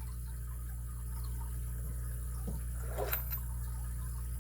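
A steady low hum of background noise with two faint light clicks, about two and a half and three seconds in.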